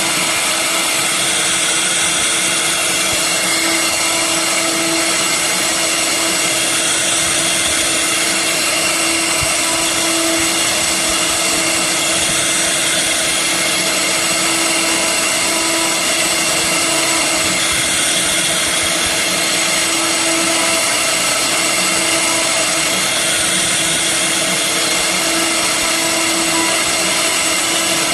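An electric power tool running continuously at a steady speed with a high whine while carving wood.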